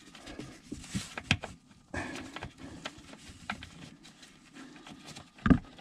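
Hands working at the plastic base of a Thetford RV toilet: scattered light plastic clicks and knocks with cloth rustling, and one louder thud near the end.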